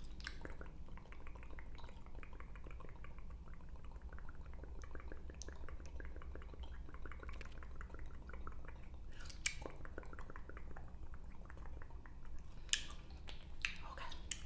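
Wet gum chewing and smacking close to the microphone: a steady run of quick sticky mouth clicks, with a few louder sharp clicks in the second half.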